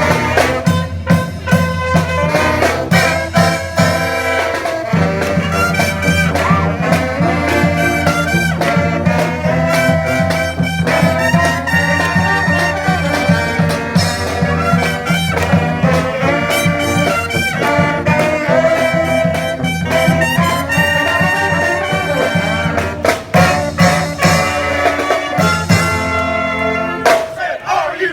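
Brass band playing a swinging tune: trumpets and trombones over a steady bass line and a drum beat. The bass drops out near the end.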